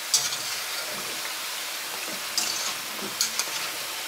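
Samosas deep-frying in a wok of hot oil: a steady sizzle, with a few sharper crackles near the start, about two and a half seconds in and just after three seconds.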